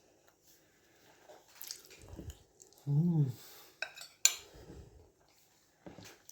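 A single loud burp about three seconds in, with a few short clicks and knocks around it.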